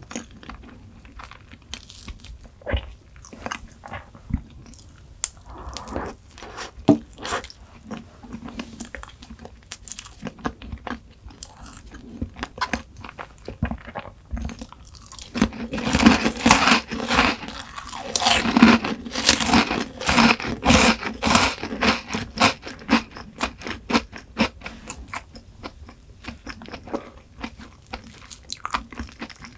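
Close-miked eating: a person bites and chews something crunchy, with scattered crisp crunches. The crunching turns dense and loud about halfway through for several seconds, then eases back to occasional chewing.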